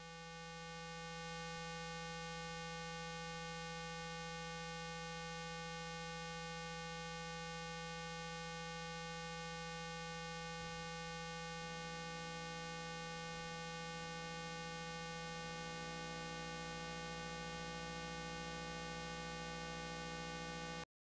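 A steady electrical hum with many evenly spaced overtones. It swells in over the first second or so, holds level, and cuts off suddenly near the end.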